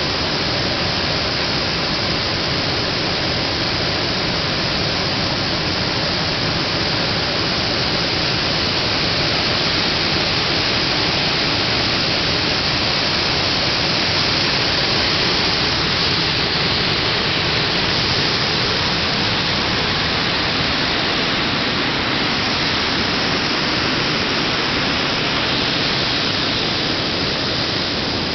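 Muddy floodwater pouring over a ledge and churning: a loud, steady rush of water that stays even throughout.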